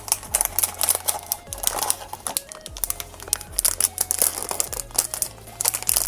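Crinkling and crackling of a sealed plastic blind-box bag being handled and torn open by hand, over background music with a slow, low bass line.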